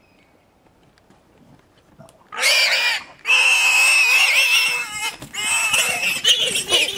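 Warthog squealing in distress as a lion seizes it at its burrow: loud, shrill, drawn-out squeals that begin about two seconds in and go on with only brief breaks.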